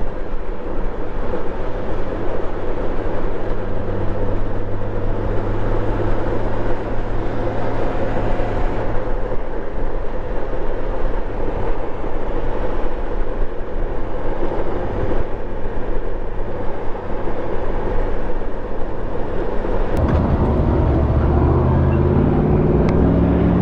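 Motorcycle engine running under heavy wind and road noise while riding, the note steady at cruising speed; about 20 seconds in the engine pitch rises as the bike accelerates.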